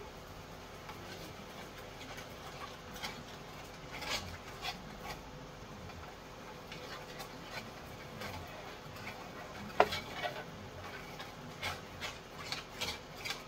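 A utensil stirring and scraping gravy in a pan on an induction cooktop, with light knocks against the pan. There is one sharper knock about ten seconds in, and quicker, regular scraping strokes near the end.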